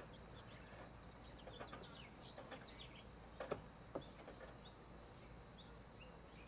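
Small birds chirping faintly now and then, with two sharp clicks about three and a half and four seconds in.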